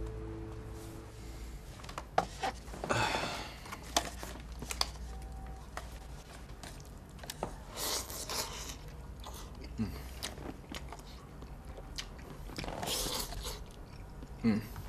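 A person eating instant cup noodles with chopsticks: three long slurps a few seconds apart, with chewing and small clicks of chopsticks and cup between them.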